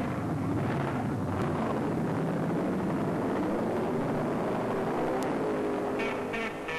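Drag-racing engine at full throttle off the start line, a loud, continuous roar. Guitar music comes in near the end.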